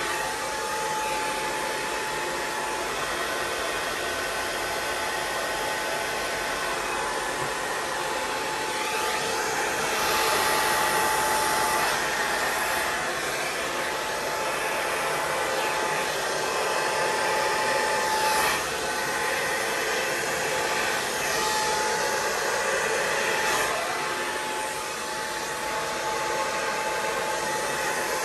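Handheld air blower running steadily, pushing wet fluid acrylic paint around a canvas: a rush of air with a thin steady whine beneath it. The level swells for a few seconds about a third of the way in and dips briefly near the end.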